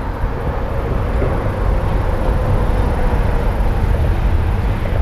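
Steady traffic noise from a highway overpass, with a faint drone that slowly falls a little in pitch over the first few seconds.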